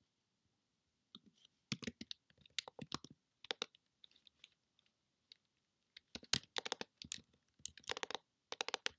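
Typing on a computer keyboard: quick runs of key clicks starting about a second in, a lull in the middle, then another fast run of keystrokes.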